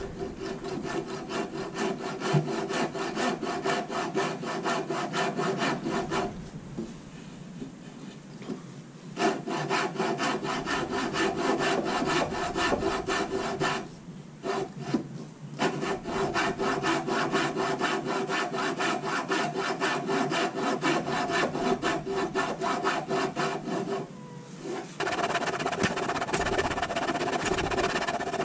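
Coping saw cutting through the wood of a carved tail in quick, even back-and-forth strokes, pausing three times before carrying on.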